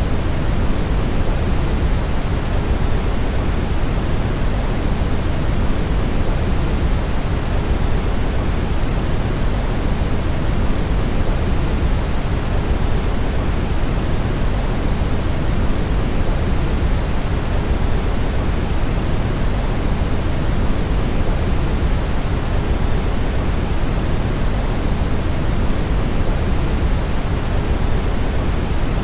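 Steady brown noise: an even, unchanging hiss-like rumble, strongest in the deep lows and fading toward the highs.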